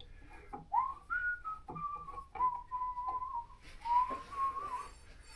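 A person whistling a short tune, a single pitch line that rises and then steps down through a few held notes, with a few light clicks and knocks alongside.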